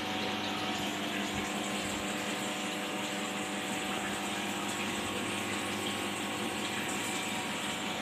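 Aquarium filter pump running steadily: a constant electrical hum under an even splash and trickle of circulating water.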